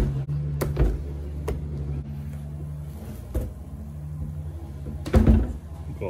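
A few sharp clicks and light knocks as the silicone-covered aluminium microwave toastie maker is unclipped and handled on a stainless steel sink drainer, then a louder cluster of knocks a little after five seconds in as its lid is lifted off and set down. A steady low hum runs underneath.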